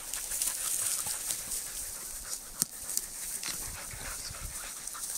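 Several Norwegian Elkhounds panting close by, with rustling in the grass as they jostle, and one sharp click about two and a half seconds in.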